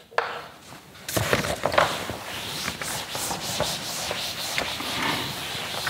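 Chalkboard duster rubbing across a chalkboard, wiping it clean in repeated scrubbing strokes that start about a second in.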